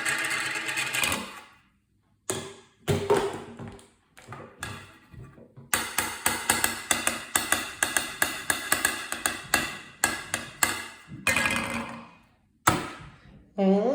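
Short smoke alarm sound clips spliced one after another with brief silences between them; the longest is a rapid pulsing at about five pulses a second lasting about five seconds.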